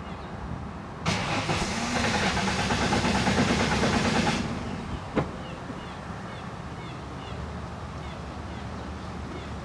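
A Ford Mustang's starter cranking the engine for about three seconds without it catching: a no-start that the mechanic traces to the fuel pump not getting its ground from the fuel pump driver module. A single sharp click follows about a second after the cranking stops.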